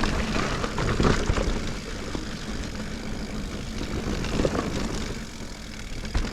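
Sonder Evol GX mountain bike rolling down a woodland dirt trail: steady wind rushing over the action camera's microphone and tyre rumble, with irregular knocks and rattles as the bike runs over bumps.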